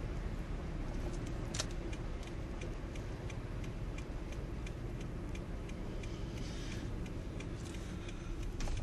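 Car driving, heard from inside the cabin: a steady low road and engine rumble, with a light regular ticking at about three ticks a second and one sharper click about a second and a half in.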